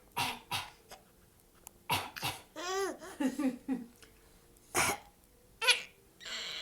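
A person coughing several times in short, harsh coughs, with a young child laughing in between.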